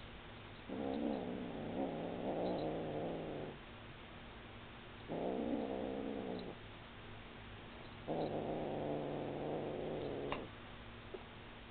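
Kitten growling low over a feather toy it has caught, three long growls with short pauses between: a kitten guarding its prey.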